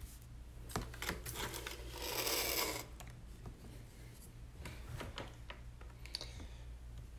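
Trading cards being handled: light clicks and taps, with a longer papery swish about two seconds in, over a steady low hum.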